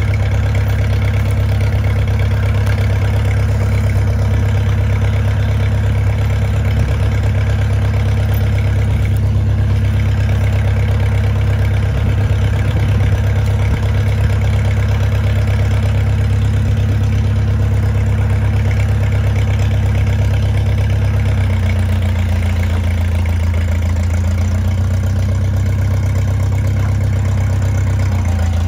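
Old tractor engine idling steadily; its note changes about three quarters of the way through and again near the end.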